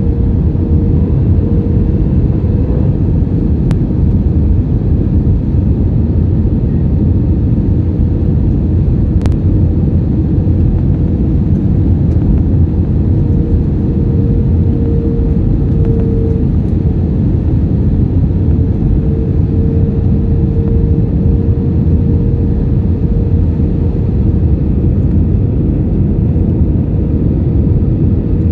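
Airliner cabin noise on the approach to landing: the steady, loud rumble of the engines and airflow, with a faint steady hum that fades about 3 seconds in and comes back in the second half.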